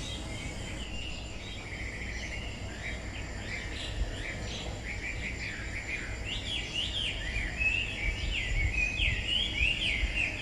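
Several songbirds chirping and twittering in quick, short rising and falling notes, growing busier in the second half, over a steady low background noise.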